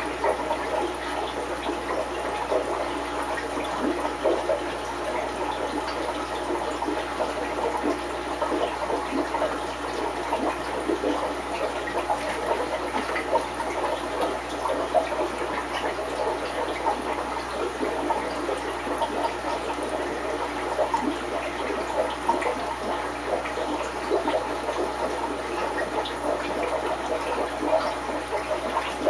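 Aquarium filter water bubbling and trickling steadily, a continuous stream of small splashes.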